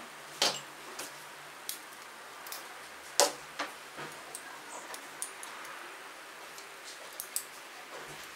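Small metal tools, a set of hex keys and a small brass padlock, being set down and handled on a tabletop: scattered clicks and clinks, the sharpest about three seconds in.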